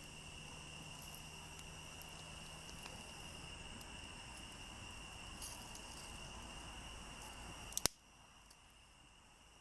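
Crickets trilling steadily over a low outdoor rumble. A sharp click comes near the end, after which the rumble drops away and the trill goes on more faintly.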